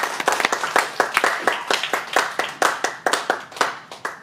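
Audience applause, many hands clapping, fading out near the end.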